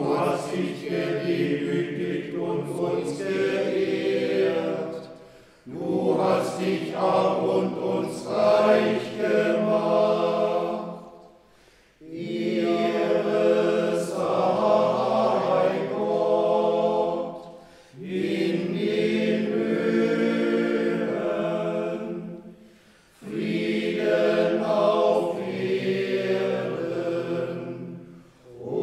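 A small monastery choir (schola) singing a slow chant, in phrases of about five to six seconds, each ending in a brief pause for breath.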